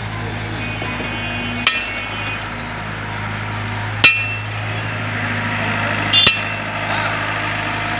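Excavator's diesel engine running steadily, with three sharp metallic clanks, a couple of seconds apart, as it works the stone.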